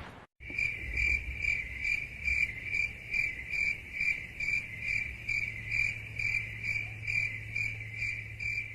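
Field crickets chirping in a steady, even rhythm of about two and a half chirps a second over a faint low hum: the 'crickets' meme sound effect used for an awkward silence.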